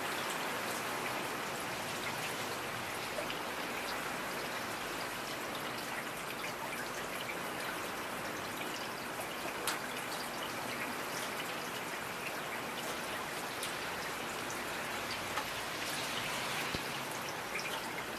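Steady rain falling, an even hiss with now and then a single louder drop ticking.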